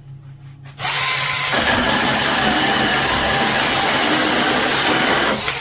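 Tomyvic 21-volt battery mini chainsaw with a small brushed motor starting about a second in and running flat out as its chain cuts through a 2x4, then stopping near the end. Its trigger is all-or-nothing, so the motor goes straight to full speed and holds steady.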